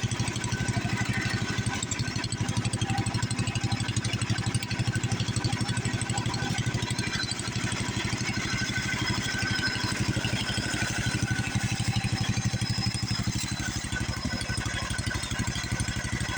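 Old tractor engine idling steadily, a fast, even run of low firing pulses.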